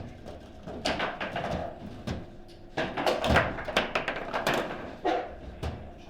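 Table football in play: a quick, uneven series of hard knocks and clacks as the ball is struck by the rod figures and the rods slide and bang, loudest around three to four and a half seconds in.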